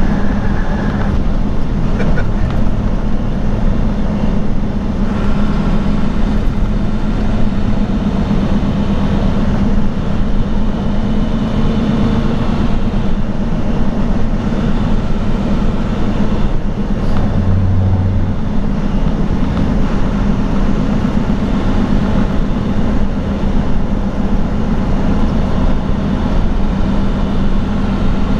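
Steady cab noise of a truck at highway speed: a constant engine drone over tyre and road rumble.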